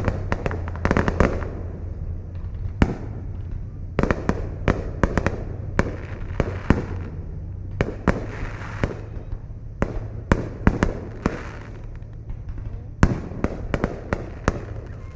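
Fireworks bursting: many sharp bangs, often several in quick succession, with crackling between them over a steady low rumble.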